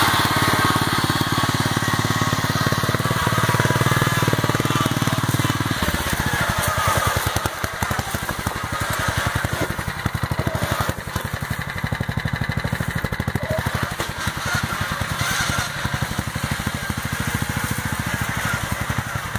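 Small engine of a modified off-road riding lawn mower running as the mower is driven over rough ground. About six seconds in the note drops, and it carries on at lower revs with an even, steady beat.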